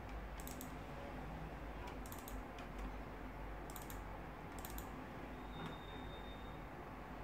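Computer mouse buttons clicking in short double and triple clicks, about four times, over a low steady hum. A faint high tone sounds for about a second near the end.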